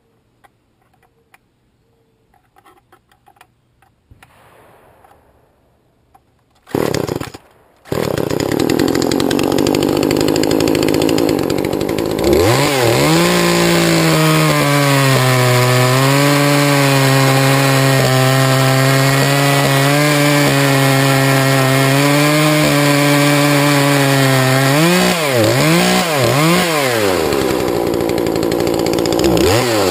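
Poulan two-stroke chainsaw: a few handling clicks, a short burst of engine noise about seven seconds in, then the saw starts and idles. About twelve seconds in it is revved to a high, steady full-throttle pitch and held there for about twelve seconds. It then gets several quick throttle blips and drops back to idle.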